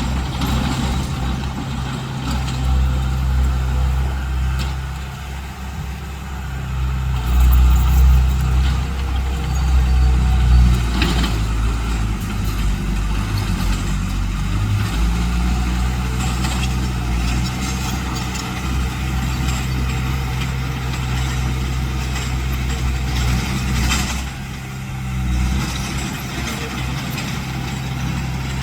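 Heavy construction machine's diesel engine running steadily under load, swelling louder a few times, with a couple of sharp knocks.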